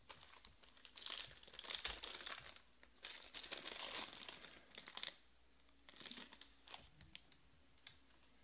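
Foil wrapper of a 2020 Topps Museum Collection card pack crinkling and tearing as it is ripped open by hand, in two longer spells of crackling with a short one and a few single crackles after.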